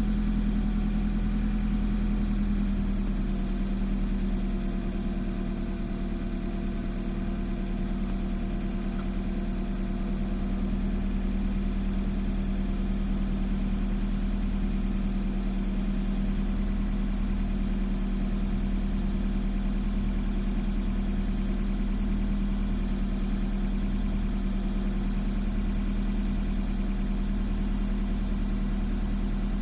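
BMW M42B18 1.8-litre DOHC four-cylinder engine in an E36 318is idling steadily.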